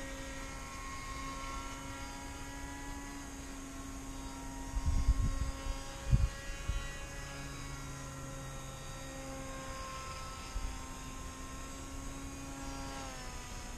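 Electric motor and propeller of a model plane whining steadily in flight, its pitch sliding down near the end. Wind thumps on the microphone a few times around five and six seconds in.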